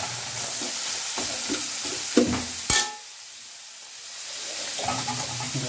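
Sliced onions sizzling in hot oil in a large metal kadai while a perforated steel skimmer scrapes and turns them, with one sharp metallic clink a little before three seconds in. The stirring pauses for a moment, leaving only the sizzle, then resumes near the end.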